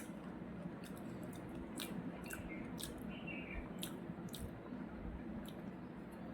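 A person chewing food close to the microphone, with a string of short wet mouth clicks.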